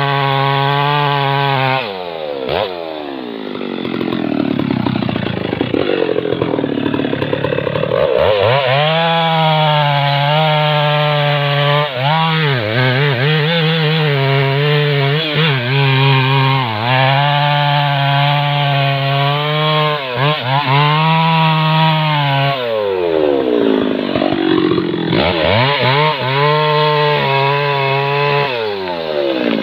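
Stihl MS 660 two-stroke chainsaw cutting into a thick rain tree trunk at high revs, its pitch sagging now and then as the chain bites under load. The engine falls off about two seconds in and again a little past twenty seconds, then revs back up into the cut each time.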